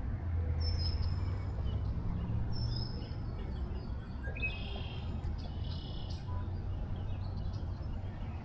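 Small birds chirping and whistling in short scattered calls over a steady low rumble of outdoor background noise.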